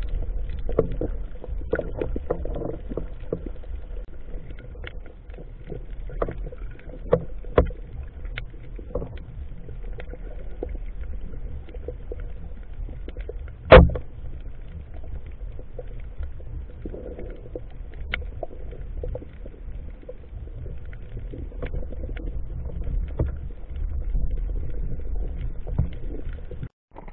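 Underwater sound on a reef: a steady low rumble with scattered sharp clicks and crackles, and one much louder knock about halfway through.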